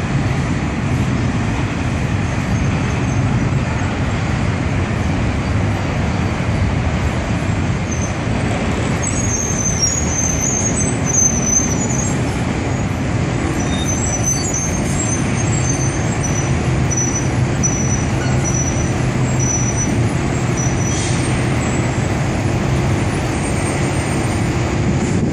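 Double-stack intermodal freight train rumbling steadily across a steel railway overpass, mixed with road traffic. Faint short high-pitched squeals come and go from about nine seconds in.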